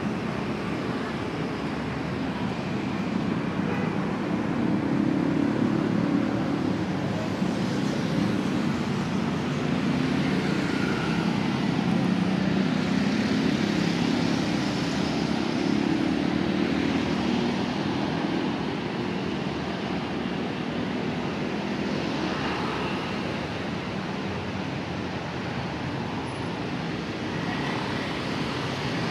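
City street traffic noise: a steady rush of passing motor vehicles, a little louder for a stretch in the middle.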